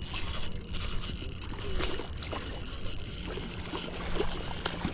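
Hooked trout splashing and thrashing at the water's surface close to shore while it is reeled in on a Shimano Vanford 1000 spinning reel, with many short, sharp splashes.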